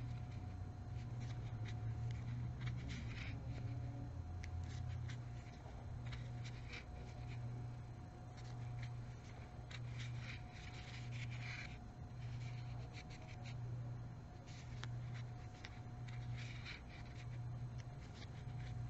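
Crochet hook and yarn rustling and scratching in short irregular strokes as stitches are worked, over a low hum that swells and fades about once a second.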